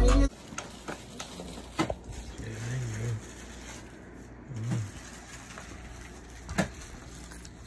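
A hip-hop beat playing through studio monitors cuts off abruptly, leaving a quiet room with a low steady hum, a few sharp clicks and a couple of faint low murmurs.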